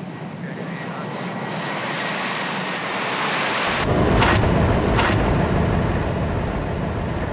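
Boeing 737 flight deck on the takeoff roll: steady engine and rushing air noise growing louder. About three and a half seconds in, the cockpit side window comes open and a loud rush of wind with low buffeting fills the flight deck, with two sharp knocks about a second apart.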